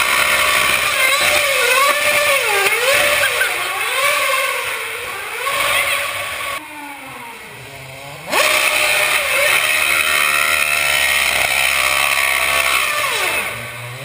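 McLaren Formula One car's engine revving hard, its pitch swinging up and down over and over as the car spins around the circle. It drops back briefly a little past halfway, then comes back at full pitch, and tyre smoke rises near the end.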